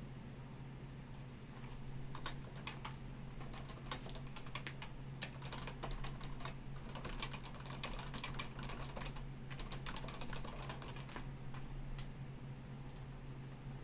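Typing on a computer keyboard: rapid runs of key clicks that thin out near the end, over a steady low hum.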